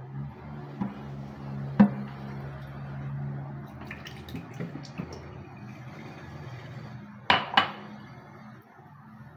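Cooking oil poured in a thin stream into an empty aluminium kadai, with a sharp clink about two seconds in and two quick knocks of kitchenware near the end.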